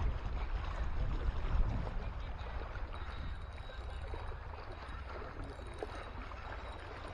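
Wind rumbling on the microphone, easing about two seconds in, over faint water sounds at the rocky shoreline.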